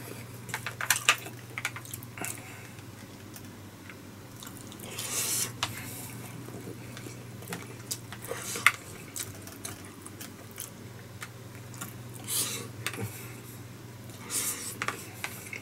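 Chopsticks and a plastic spoon clicking and scraping against a plastic bento tray while someone eats, in scattered light taps. A steady low hum runs underneath.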